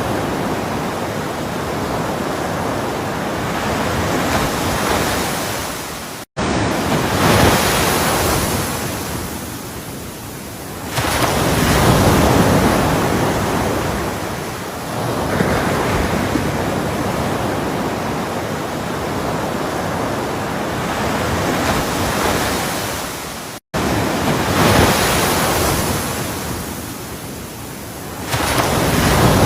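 Ocean waves washing and breaking on a shore, a continuous rush that swells and eases every few seconds. It cuts out to silence for an instant twice.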